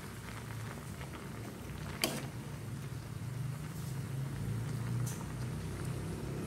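Water at a rolling boil in a small pot on a gas burner, a steady low rumble, while long beans are stirred with a ladle; the ladle clinks sharply against the pot about two seconds in, with a fainter knock near the end.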